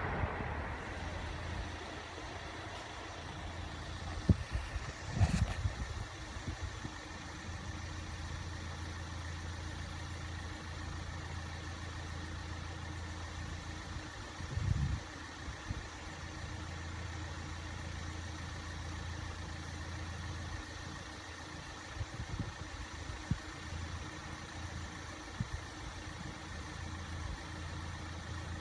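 A car engine idling steadily with a low, even hum. It starts as a passing train's noise dies away over the first second or two. There are a few short knocks about four to five seconds in and again near fifteen seconds.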